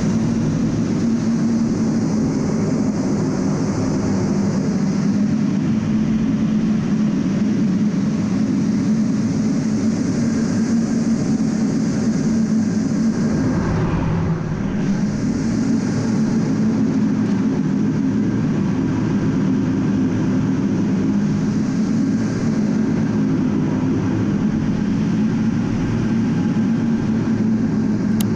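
A-10 Thunderbolt II in flight heard from inside its cockpit: the steady, loud drone of its twin TF34 turbofan engines, with a brief shift in the sound about halfway through.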